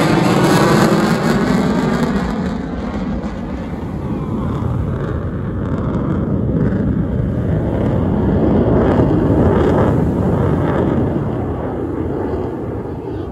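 Eurofighter Typhoon fighter jet's twin EJ200 turbofans making a loud, deep jet roar as it flies past and away. The roar swells and dips twice, then fades near the end.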